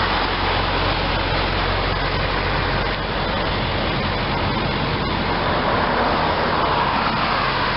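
A steady, even rumble and hiss with a faint low hum underneath, holding at one level without a break.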